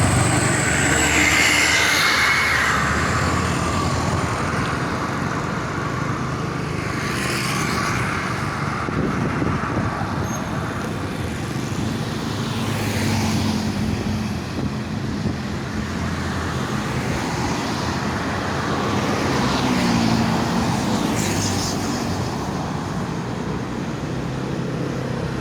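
Road traffic: buses and other vehicles driving past with engine and tyre noise, a passing swell every several seconds.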